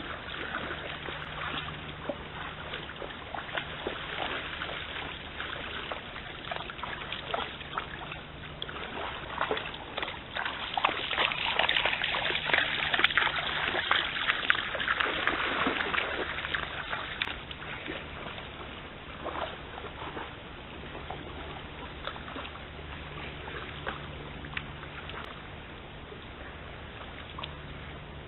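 Red deer wading through a swollen stream, the water splashing with their strides, loudest in the middle as they pass close by. A steady low hum runs underneath.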